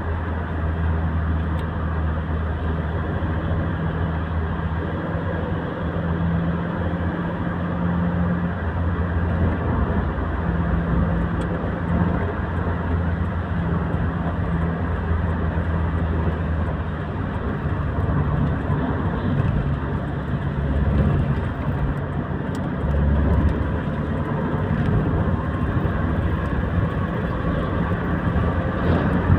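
Steady road noise inside a moving car's cabin at motorway speed: tyre noise with a low, steady engine drone.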